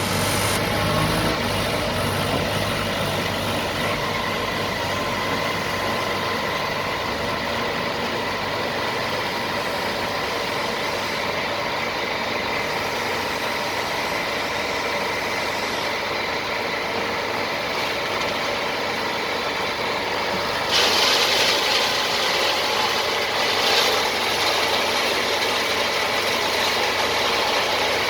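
Engine of an Aimix AS-3.5C self-loading concrete mixer running steadily. About 21 seconds in, a louder hissing rush joins it and carries on.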